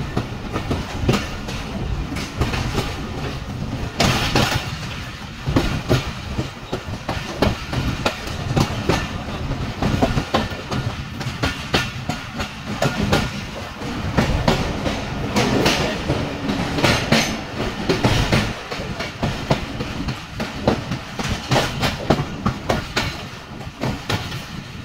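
Passenger train running at speed, heard from on board: a steady rumble of wheels on track with frequent sharp clicks and knocks as the wheels pass over rail joints.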